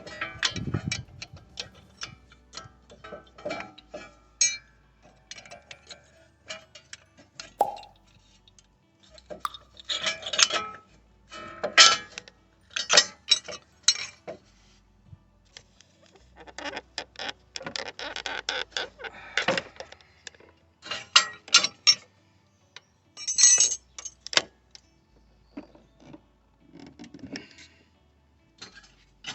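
Metal brake pad and caliper hardware clinking, clicking and scraping in irregular bursts as a front brake pad is worked out of the caliper by hand.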